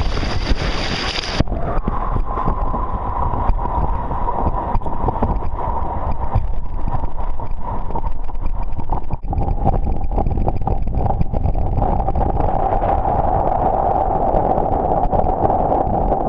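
Wind buffeting the microphone and water noise aboard a sailing yacht under way: a dense, crackling rumble. About a second and a half in the sound changes, and a steady whine slowly sinks in pitch under the rumble.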